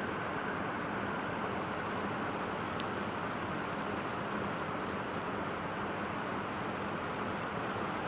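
Orpat Money Saver Silencio BLDC ceiling fan running: a steady whirring with a faint hum, carrying the minor 'katkat' noise that comes from loose blade-fixing bolts at the motor.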